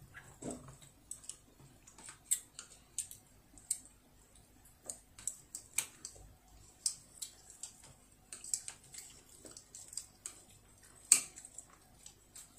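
Chopsticks clicking and tapping against plates and a plastic tray as food is picked up: scattered light clicks, one or two a second, with a sharper click about eleven seconds in.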